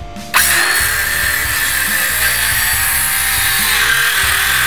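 Electric circular saw starting up about a third of a second in and cutting through a wooden board, running loud and steady.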